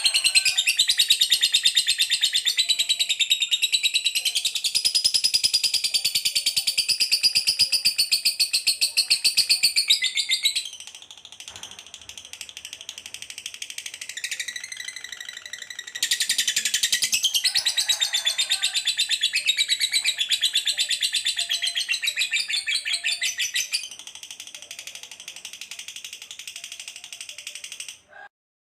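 Recorded cage-bird song mixing canary, lovebird and sparrow: long runs of rapid, high trills and chatter. It comes in two loud stretches with quieter twittering between and after them, and it cuts off abruptly near the end.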